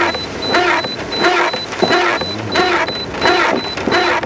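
Car windscreen wipers sweeping fast across a rain-soaked windscreen, each stroke a rubbing swish with a wavering tone, about three strokes every two seconds.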